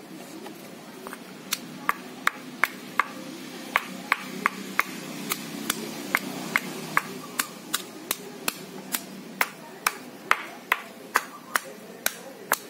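Pestle pounding ginger and garlic in a stone mortar: sharp knocks at about two or three a second, each ringing briefly, starting about a second and a half in.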